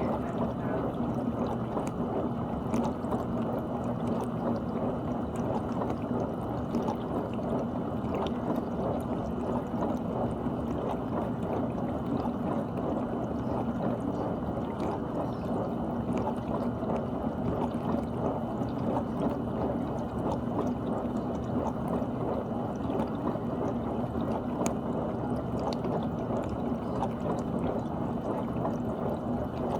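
GE dishwasher running its wash cycle: a steady, muffled rush of water spraying and sloshing inside the tub over the even hum of the circulation pump.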